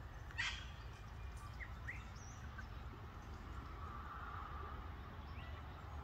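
Birds chirping outdoors: a few short, separate calls, the loudest about half a second in, over a steady low rumble.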